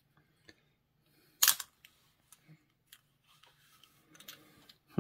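Plastic Lego pieces being handled: one sharp click about a second and a half in, then a few faint ticks and light rummaging.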